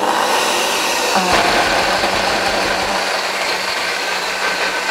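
Countertop blender switched on and running steadily on cooked broccoli. The purée is too thick, so the blade spins without catching the broccoli.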